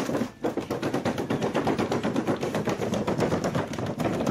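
Thin clear plastic pastry container crackling and clattering in a fast, irregular run of sharp clicks as a pug pushes its head inside it and roots around.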